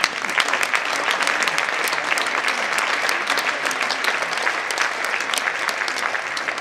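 Audience clapping in applause, breaking out suddenly and continuing steadily.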